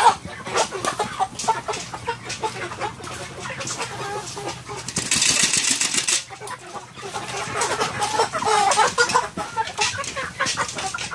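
A flock of Cornish cross broiler chickens clucking as they crowd a feeder, with many small clicks throughout. About five seconds in, a brief rattling rush as feed is stirred in the galvanized metal feeder can.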